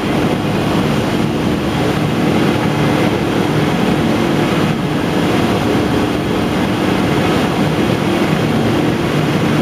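Industrial factory machinery running steadily: a loud, continuous drone with a constant hum, unchanging throughout.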